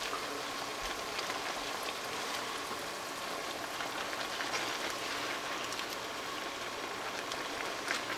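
Cornstarch stir-fry sauce bubbling and sizzling in a frying pan with vegetables: a steady crackling, thin bubbling, the sauce still liquid before it thickens. A short knock near the end.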